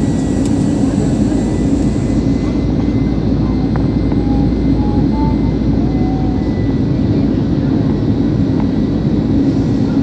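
Steady engine and airflow noise of an airliner in flight, heard from inside the passenger cabin, deep and even, with a thin steady high tone above it.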